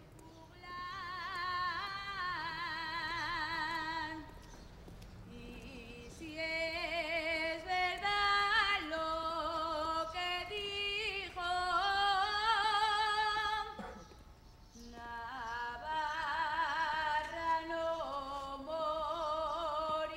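A woman's solo singing voice holding long notes with strong vibrato, in phrases that break off about four and fourteen seconds in.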